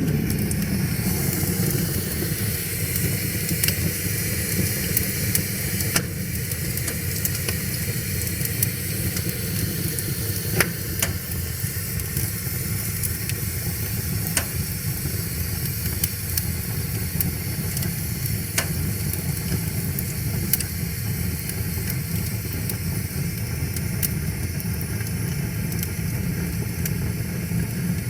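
Wood fire crackling and hissing, with sharp pops every few seconds, over a steady low rush of river water.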